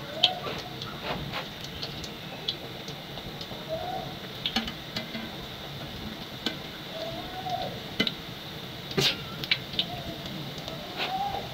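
Mandazi dough pieces frying in hot cooking oil with a steady sizzle. A wire skimmer gives scattered clicks against the pot, with a sharp clack about nine seconds in.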